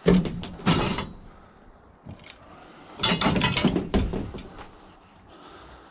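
Scrap metal clanking and rattling as it is handled, in two bursts: one right at the start and another about three seconds in, with a brief metallic ring.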